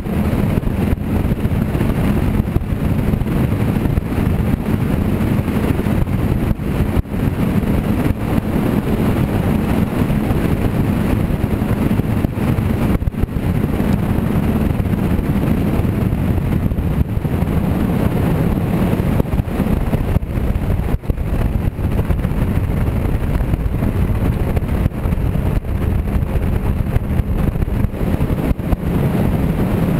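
Steady wind rumble buffeting the microphone of a camera on the bow of a moving bass boat, a loud, even low roar with no let-up.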